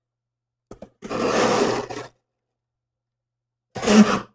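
Cardboard scraping and rubbing for about a second as a small cardboard box is opened, after a couple of faint clicks, with a short louder burst near the end.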